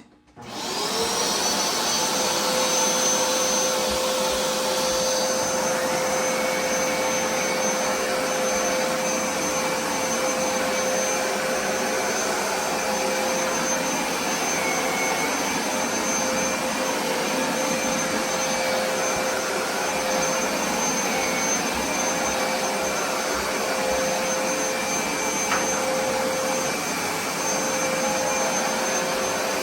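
Hoover SmartWash carpet cleaner switched on in its dry-only mode, with suction and no solution spraying. The motor spins up with a rising whine within the first second, then runs steadily with a constant high whine over its suction noise.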